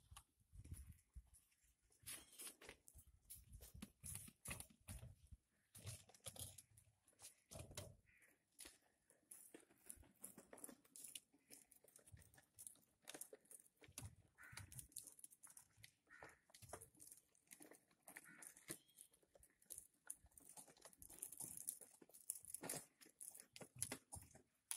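Near silence with faint, scattered clicks, scrapes and rustles of handling, as PVC pipe and fittings are worked by hand.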